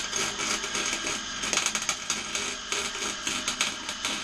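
Electric arc welder running a weld: a continuous crackling sizzle from the arc, with irregular sharp pops.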